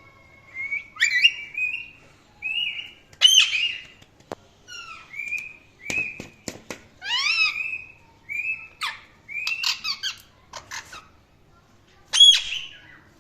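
Indian ringneck parrot giving a run of short whistled chirps and gliding calls, with two loud, high squawks, one about three seconds in and one near the end.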